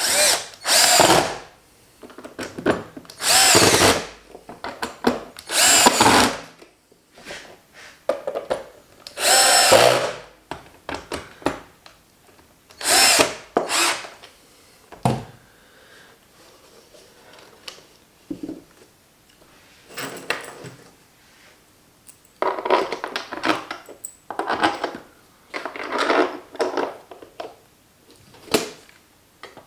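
Small 10 V cordless drill-driver driving screws into a plastic ventilation distribution box, the lid pulling down onto its silicone gaskets. It runs in a string of short bursts of about a second each with pauses between, the motor's whine rising as it spins up.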